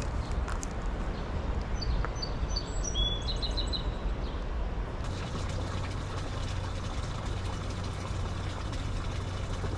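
Outdoor ambience of a steady low rumble, with a bird chirping a few quick times about three seconds in. About halfway through, a steady low hum joins the rumble.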